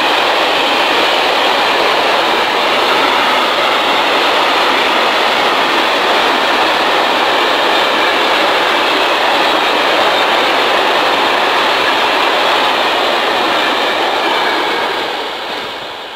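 Freight train of covered hopper wagons rolling past on the rails: a loud, steady noise of wheels and wagons that fades near the end as the last wagon goes by.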